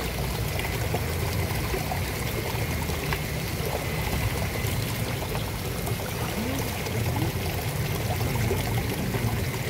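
Steady splashing of water pouring from an inlet pipe into a fish pond.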